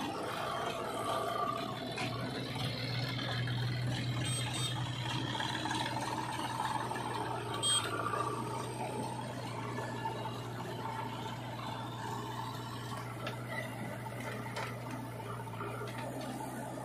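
Diesel engine of a John Deere 5045 D tractor running steadily at low revs, a constant low hum as the tractor hauls its loaded trolley, with one short knock about eight seconds in.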